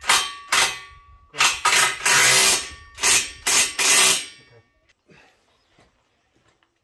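About eight harsh rasping strokes of a hand tool worked back and forth on a workpiece, one longer stroke about two seconds in. They stop about four and a half seconds in.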